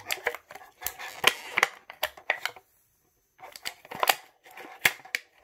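Thin clear plastic bag crinkling and crackling under the fingers as it is worked open to get a Beyblade part out, in quick irregular crackles with a short pause just before the middle.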